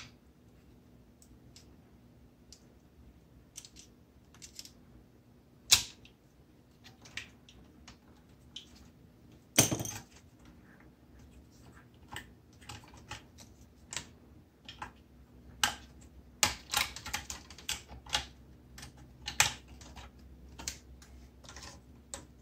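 Irregular clicks, taps and small rattles from hands handling a disassembled battery charger: wiring connectors being worked loose and the circuit board and its parts shifted. The two loudest knocks come about six and ten seconds in, and the clicks crowd together near the end.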